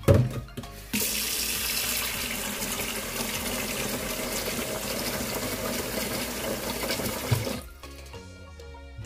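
A stainless steel bowl clanks against a steel sink once, then a kitchen tap runs in a strong steady stream into a steel pot of rice being rinsed, from about a second in until it shuts off near the end.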